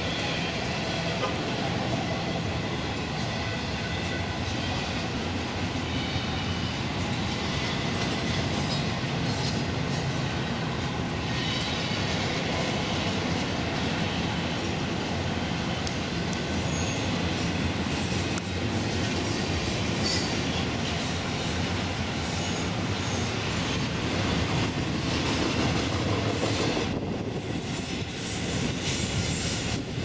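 Double-stack container freight cars rolling past on steel rails: a steady rumble of wheels on rail with faint high ringing tones and scattered clicks and clanks from the cars' running gear.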